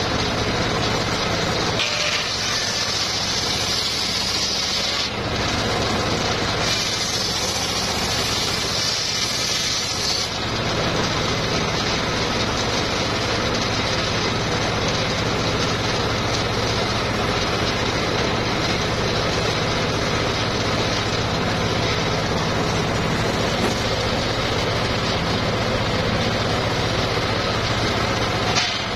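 Homemade bench circular saw running steadily, its blade ripping mahogany twice, with a high-pitched cutting noise from about two to five seconds in and again from about seven to ten seconds in.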